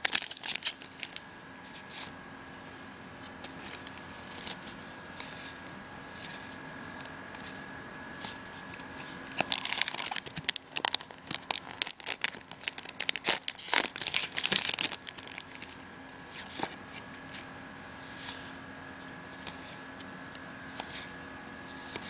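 Foil wrapper of a trading-card booster pack crinkling and tearing as it is opened by hand, in scattered bursts, with two louder bursts a little past halfway.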